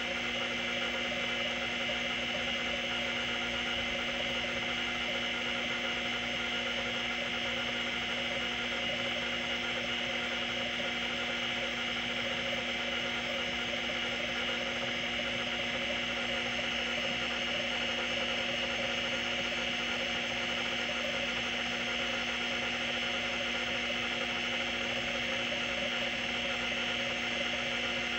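Seagate ST-212 half-height MFM hard drive running with its cover off: the spindle hums steadily while the stepper-driven head actuator seeks the heads back and forth across the platter, giving a continuous whine made of several held tones over a fluttering buzz.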